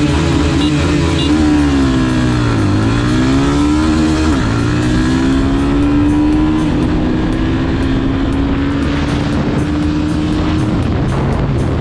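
Single-cylinder 250 cc motorcycle engine accelerating hard at full throttle in a drag run. Its pitch drops and climbs again at two quick gear shifts in the first few seconds, then rises slowly for a long pull in a higher gear.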